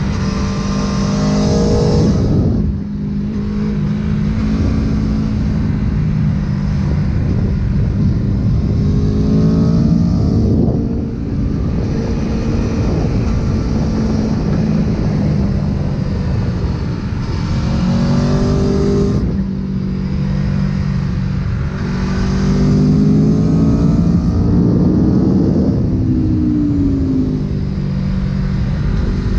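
Aprilia sport motorcycle engine heard onboard at track pace, revving up hard and dropping back several times as the throttle is opened on the straights and eased for the corners, over steady wind rush.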